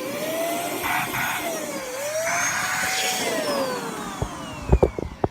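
Simplus handheld vacuum cleaner's motor running with a whine that rises and falls in pitch every second or two over a hiss of rushing air. It fades out near the end, where a few sharp knocks sound.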